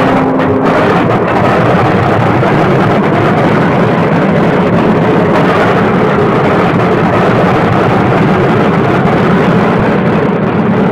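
P-47 Thunderbolt's Pratt & Whitney R-2800 radial engine running with a loud, steady roar.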